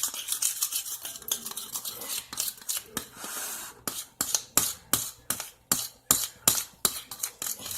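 A utensil stirring thick glue-and-lotion slime in a bowl, scraping and clinking against the bowl. About halfway through, the clinks settle into a quick regular beat of about three a second.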